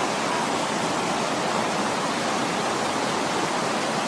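Muddy floodwater rushing down a street in a steady torrent, a continuous even roar of water.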